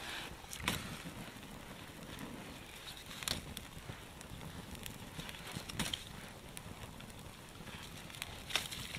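Small campfire of dry twigs burning, with a faint steady hiss and a few sharp crackling pops a couple of seconds apart.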